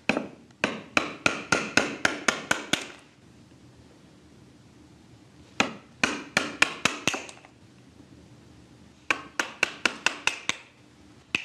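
Japanese woodworking chisel being driven into timber by a hammer in quick runs of sharp blows, about five a second, chopping out waste wood from a joint. There are three runs of about a dozen, eight and seven blows, then one single blow at the very end.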